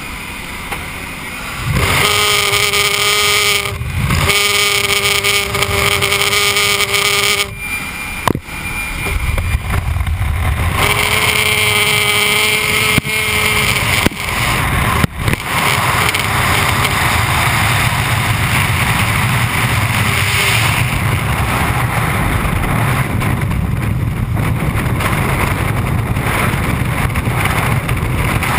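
Jump plane's propeller-engine drone and wind rushing through the open door. About halfway through, the pitched drone fades and a steady rush of freefall wind on the microphone takes over.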